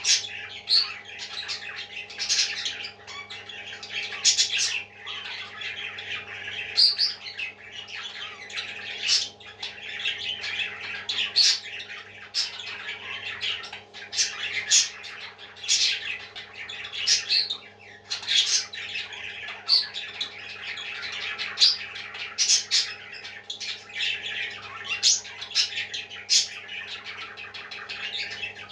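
Parrots chirping and squawking in a steady stream of short, shrill calls, over a constant low hum.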